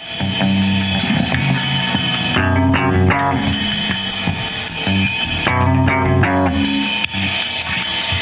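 Rock band playing: drum kit with electric bass and guitar through amplifiers, the music starting suddenly at the very beginning and running on at full volume.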